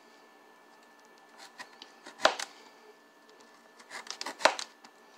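Kitchen knife knocking on a cutting board twice, about two seconds apart, each knock preceded by a few lighter ticks, as the sprouts are trimmed off a potato.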